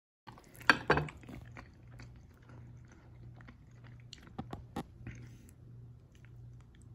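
Sharp clicks and knocks, the loudest pair about a second in and a few more around four to five seconds in, over a low steady hum.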